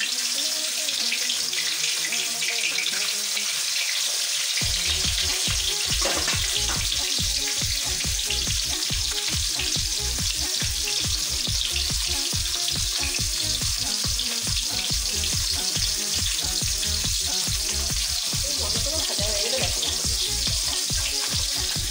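Katla fish steaks sizzling as they shallow-fry in hot oil in an aluminium kadai: a steady hiss of spitting oil. A low rhythmic beat joins underneath about five seconds in.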